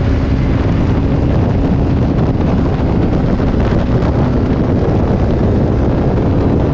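Loud, steady wind rush on the microphone of a camera mounted on a sport motorcycle at road speed, with the bike's engine droning underneath.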